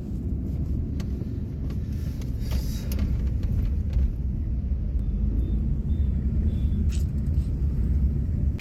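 Car driving in town traffic, heard from inside the cabin: a steady low rumble of engine and tyre noise, with a few faint ticks.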